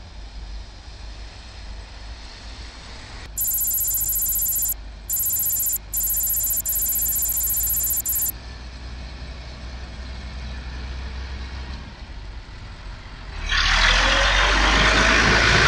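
Tractor engine running with a low rumble as it drives through shallow floodwater, ending in a loud rushing splash as its wheels pass close by in the water. Between about three and eight seconds in, a loud shrill high hiss cuts in and out three times.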